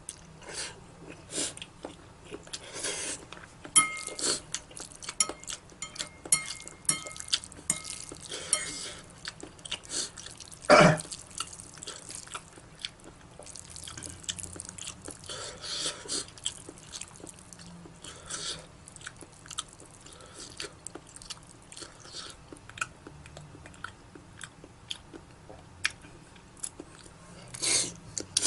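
Close-up eating sounds of someone eating spicy Buldak and Jjolmyeon noodles: irregular chewing, smacking and small clicks, with one louder clack about eleven seconds in.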